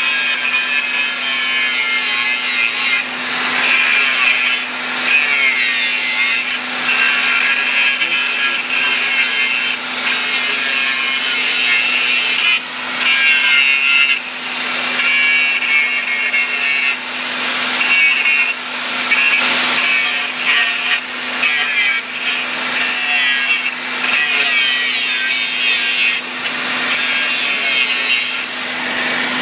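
Handheld angle grinder grinding the weld seam on a 4-inch carbon steel pipe. The harsh, continuous grinding dips briefly every second or two as the disc is eased off and pressed back onto the steel, over a steady low hum.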